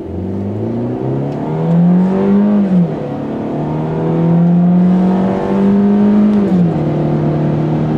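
MINI Cooper S Paceman's turbocharged 1.6-litre four-cylinder accelerating hard, heard inside the cabin. The engine note rises, then drops as the six-speed automatic upshifts about three seconds in, rises again, and drops at a second upshift near the end.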